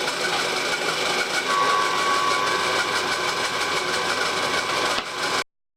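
A shop machine tool running steadily with a whirring hiss, a steady tone joining it about a second and a half in. It cuts off suddenly near the end.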